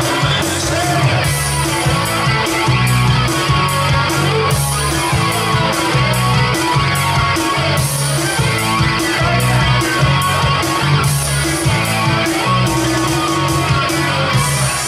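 Live rock music with no vocals: a Stratocaster-style electric guitar is played through an amplifier over a steady, evenly repeating beat.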